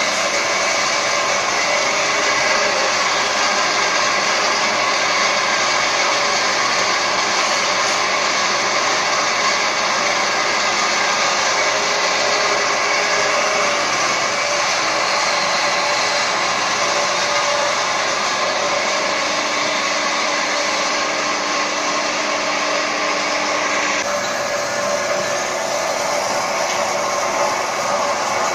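Small peanut-oil refinery plant running, giving a loud, steady rushing whir; its character changes slightly near the end.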